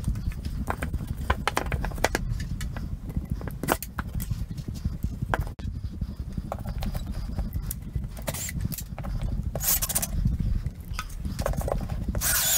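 Handling rumble from a handheld camera, with scattered light knocks and clicks and a few short scraping bursts, the last of them near the end.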